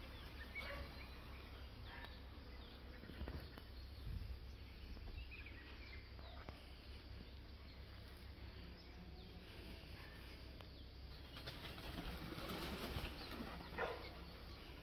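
Birds in the tree canopy: faint scattered calls, then a louder rustling stretch near the end that peaks in one sharp sound.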